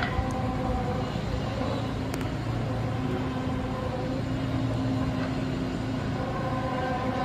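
A steady droning hum, several held tones over a low rumble, with no clear start or stop.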